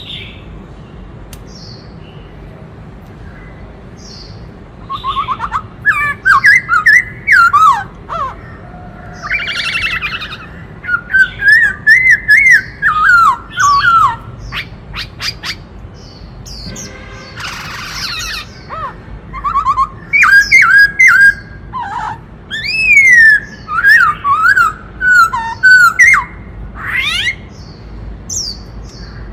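Black-throated laughingthrush singing a long, varied song of loud whistled phrases that slide up and down, broken by harsh rasping notes and quick high sweeps. The song starts about five seconds in and stops shortly before the end, over a low steady background hum.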